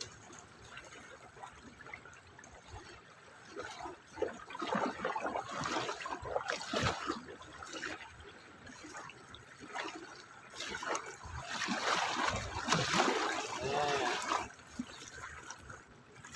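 Water trickling and splashing irregularly, with gurgling; it is busiest in the second half.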